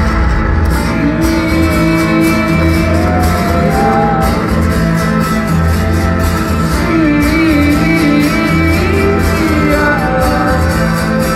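Live band music: layered guitar with a sung melody line over a pulsing low note.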